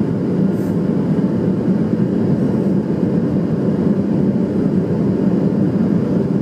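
Inside the cabin of a Boeing 737-700 on landing approach with flaps extended: steady, even, low-pitched noise from its CFM56-7B turbofan engines and the airflow over the wing.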